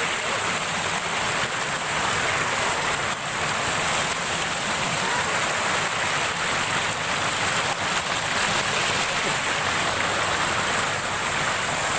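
A small waterfall pouring down onto a person's head and splashing into the pool below, a steady rush of falling water.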